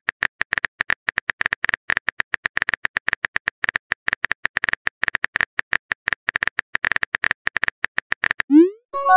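Rapid, uneven keyboard-typing clicks, a texting app's typing sound effect, going on until near the end. Then a short rising swoop and the start of a chime as the message is sent.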